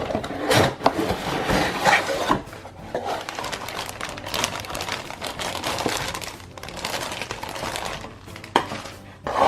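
A toy playset box being opened and unpacked by hand: rustling of cardboard and packaging, with repeated small knocks and clatter of plastic pieces.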